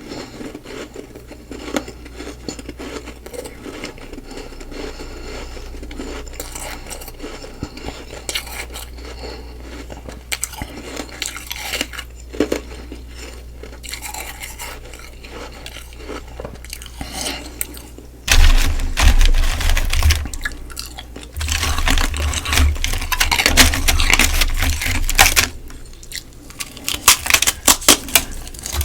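Close-miked chewing and crunching of humidifier frost ice, soft and steady at first, then two loud spells of dense crunching about two-thirds of the way in, with sharp bites near the end.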